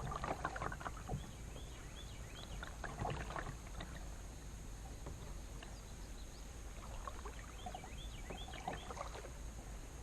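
Kayak paddle dipping and splashing in the water a few times, with drips between strokes, over a steady low hum.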